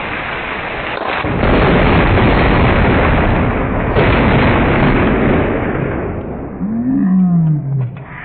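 Nearby lightning strike slowed to quarter speed: heavy rain hiss, then about a second in a sudden loud thunder blast that stretches into a long low rumble and fades after about five seconds. Near the end a deep, drawn-out cry slides down in pitch twice.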